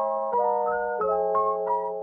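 Instrumental background music: held chords that change every second or so, with short struck notes over them.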